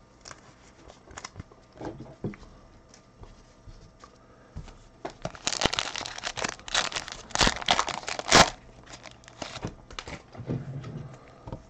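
A foil trading-card pack wrapper torn open and crinkled by hand. A few light handling clicks come first, then about halfway through a dense run of sharp tearing and crinkling that peaks near its end.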